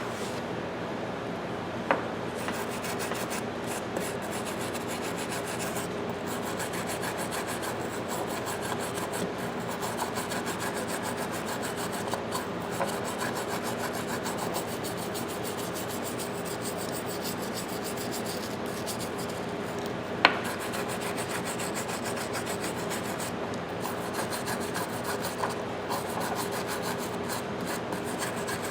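Steady, scratchy rubbing on the metal of a pipe wrench as it is worked over by hand, with a sharp tap about two seconds in and another about twenty seconds in.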